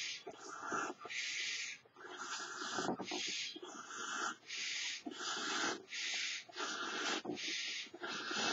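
A person inflating a large elephant figure balloon by mouth. Quick, even breathing: sharp breaths in alternate with puffs of air blown into the balloon's neck, over and over.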